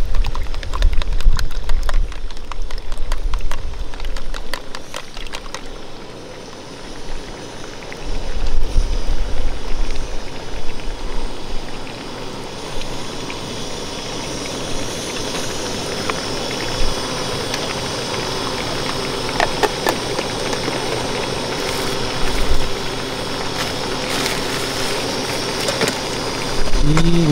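Chopsticks clicking rapidly against a plastic container as eggs are beaten, with a low rumble. Then a steady hiss of the oyakodon simmering and sizzling in a cast-iron skillet over a gas single burner, once the beaten egg has been poured in.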